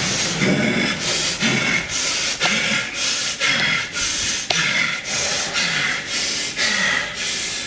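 A man breathing hard and loud with his mouth open, a grunting voiced breath alternating with a rasping one in a steady rhythm, like panting after a fight.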